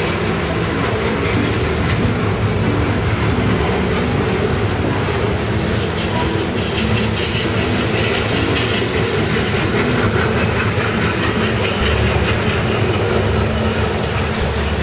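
Freight train cars rolling steadily past at close range, a continuous rumble of steel wheels on rail with brief high-pitched wheel squeals now and then.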